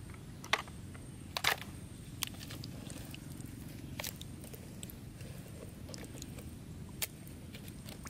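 A muddy plastic toy excavator being handled and scrubbed with a sponge in a basin of muddy water, with a few sharp clicks of the toy knocking about half a second and a second and a half in, over a steady low rumble.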